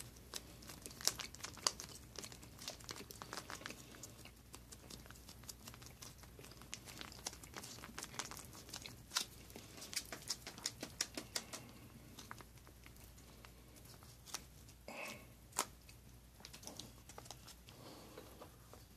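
Foil-laminate MRE peanut butter pouch being torn open and handled, crinkling in many short sharp crackles. The crackling thins out after about twelve seconds to a few scattered clicks.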